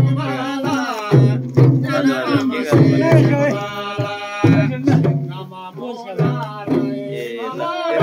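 Tamang damphu frame drums beaten by hand, struck about twice a second, while a group of men sing a folk song over them, holding one long note a little after three seconds in.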